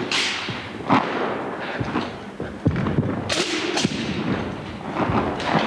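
Wushu broadsword performer's feet stamping and landing on the carpeted floor: about half a dozen sharp thuds at irregular intervals.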